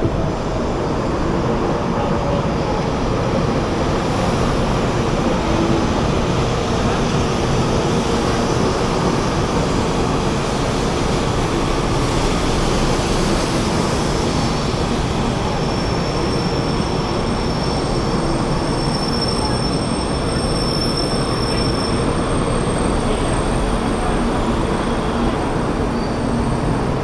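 Taiwan High Speed Rail bullet train moving along the platform, a steady loud running noise of the train and its wheels. Thin high squeals rise above it in the middle.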